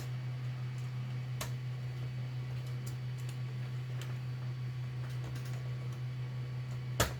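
Small plastic clicks and taps of toy blaster parts being worked into place by hand, over a steady low hum. One sharper click comes near the end.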